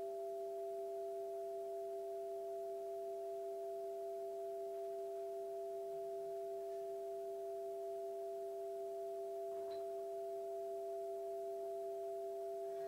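A looped electronic drone of two steady pure tones held together at an unchanging level, with a faint click about ten seconds in.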